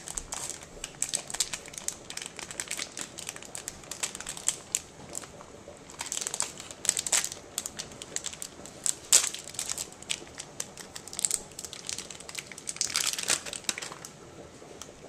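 Plastic wrapping crinkling and crackling in irregular handfuls as a block of cheese is unwrapped by hand, with louder bursts around the middle and near the end.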